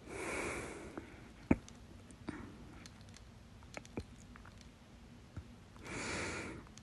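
A person with hiccups: a breath, then one sharp hiccup about a second and a half in, a few faint clicks from the mouth or throat, and another breath near the end.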